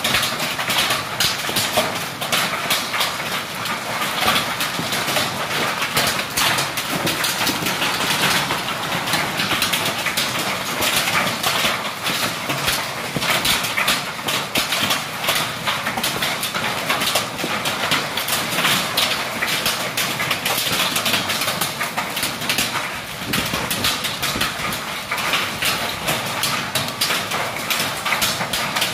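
Hailstorm with heavy rain: hailstones and rain pelting down, a loud, steady, dense clatter of countless small impacts.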